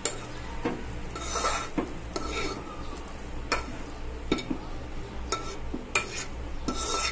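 Steel ladle scooping thick carrot halwa out of a kadai, scraping and knocking against the pan in repeated clinks about once a second.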